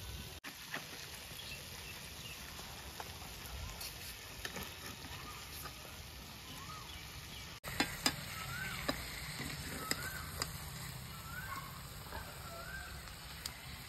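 Pangash fish pieces frying in a little oil in an iron kadai: a steady sizzle with occasional sharp clicks. The fish's water has cooked off and it has released its own oil, so it is frying dry and browning.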